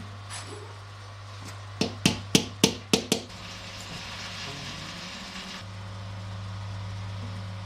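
Six quick, sharp hammer taps, about three a second, over a steady low workshop hum, followed by a couple of seconds of hiss.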